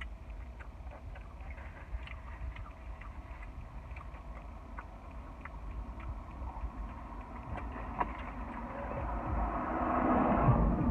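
A drink sucked through a plastic straw from a paper cup: a noisy slurp that builds from about eight seconds in and is loudest near the end. Before it, faint scattered chewing clicks over a steady low rumble.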